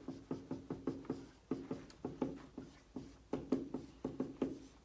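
Dry-erase marker writing on a whiteboard: a quick, uneven run of short taps and strokes as figures are written out, stopping shortly before the end.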